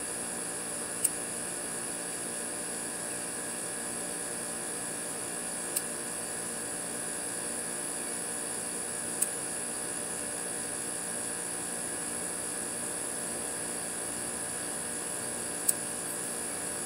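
Steady mechanical hum, broken by four sharp clicks a few seconds apart: a lighter being struck to light a cigar.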